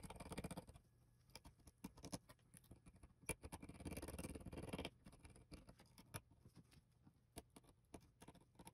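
Faint scratchy scraping as a metal tool scrapes excess hardened baking soda and superglue off a small plastic mouse part, in two spells, near the start and from about three and a half to five seconds in, with scattered small clicks and taps between.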